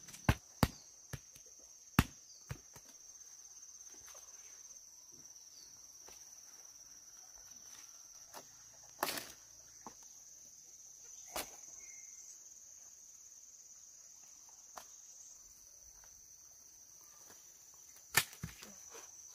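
Steady high-pitched insect drone, like crickets or cicadas, running unbroken, with sharp knocks and clicks of handling over it: several in the first couple of seconds, then a few scattered ones later.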